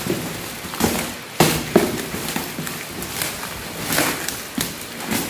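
Plastic packaging crinkling and a cardboard box being handled while gear is pulled out of it: irregular sharp crackles and rustles, the loudest about a second and a half in.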